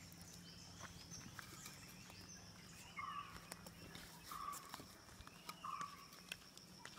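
Faint knocks and scuffs of sun-dried mud bricks being handled and set in place. From about three seconds in, a short high note repeats three times, roughly a second and a half apart, louder than the rest.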